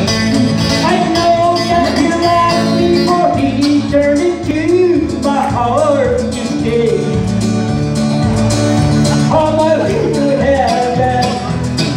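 A live band playing amplified country-style gospel music on electric guitar, keyboard and acoustic guitar, through PA speakers, with a steady low bass line and a bending lead melody.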